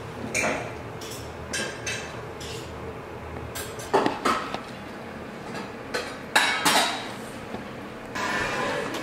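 A Weimaraner chewing and licking its lips, giving irregular wet smacks and clacks, louder around the middle and near the end.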